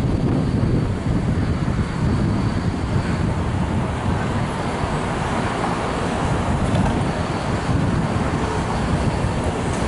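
Steady low rumble of city traffic, even in loudness throughout.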